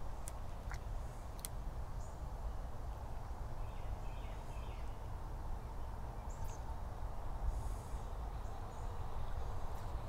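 Outdoor ambience: a steady low rumble, like wind on the microphone, with a few faint bird chirps and several light clicks near the start.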